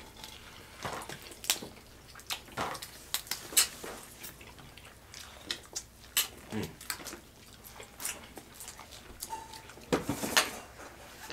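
Snow crab legs being cracked and pulled apart by hand, with wet chewing and lip-smacking: a string of irregular sharp cracks and clicks and wet smacks, a little louder near the end.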